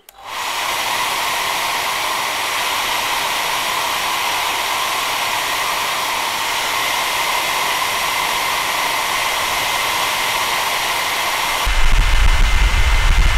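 Handheld hair dryer switched on and blowing steadily, heat-shrinking a new plastic wrap onto an 18650 battery cell: a loud even whoosh with a faint steady whine. Near the end the airy hiss drops and a loud low rumble takes over.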